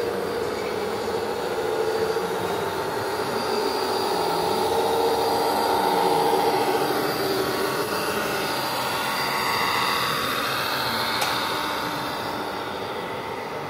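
Whine of RC model trucks and construction machines: electric motors and gearing running, several tones shifting up and down in pitch as the models change speed.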